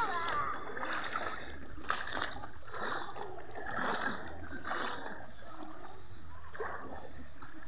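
A swimmer's strokes splashing in river water, a run of soft splashes about once a second.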